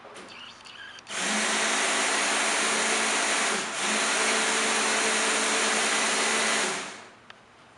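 Electric hand blender running at full speed for about five and a half seconds, easing off briefly about halfway, then cut off.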